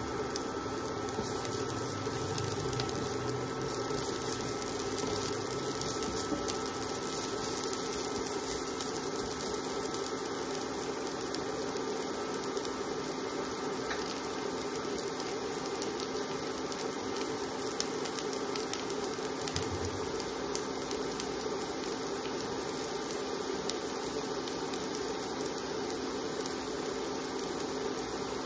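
Sliced onion, garlic and ginger frying in hot oil in a nonstick wok: a steady sizzle with fine crackles.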